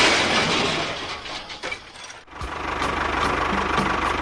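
A motor running steadily with a fast, even beat, starting about two and a half seconds in after a noisy stretch fades out.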